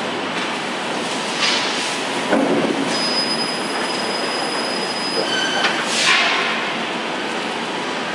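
Door-frame roll forming machine running steadily, steel strip being drawn through its forming rollers. A thin high squeal holds for about two seconds in the middle, and a few short hisses come and go.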